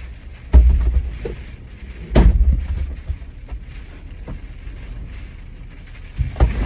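Two loud sudden thumps about a second and a half apart, each trailing into a low rumble, and a third shortly before the end, over a low steady rumble of wind noise.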